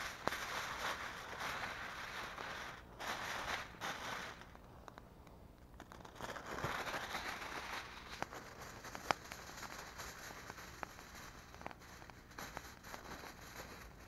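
Aluminium foil crinkling and rustling as it is unrolled from the roll and handled, in long stretches over the first few seconds and again around six to eight seconds in. Scattered sharp crackles follow through the second half.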